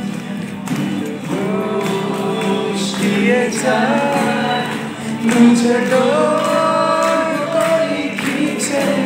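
A young man singing live into a microphone, accompanying himself on a strummed acoustic guitar.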